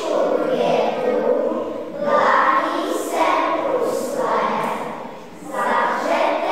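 Children's choir singing unaccompanied, in phrases of about two seconds with brief pauses between them.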